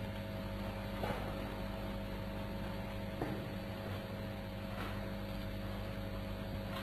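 Low steady electrical hum with background hiss from the recording, broken by a few faint clicks about one, three and five seconds in.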